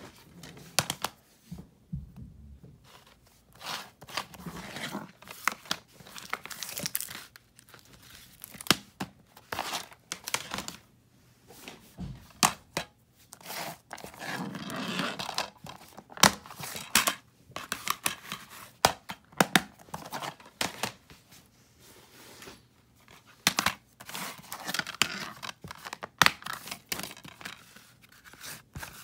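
Plastic DVD cases being handled and opened: many sharp clicks and clacks, with scraping and rustling in between.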